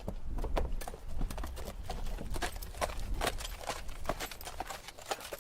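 A horse walking, its hooves clip-clopping at an easy walking pace of about three or four hoofbeats a second, over a low rumble.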